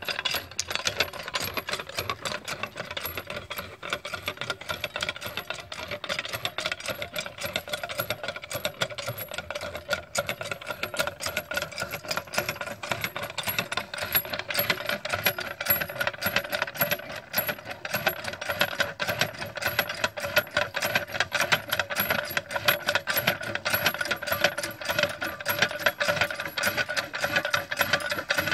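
Hand pump being worked by its handle: a rapid, continuous run of metallic clicks and rattles from the handle linkage and plunger.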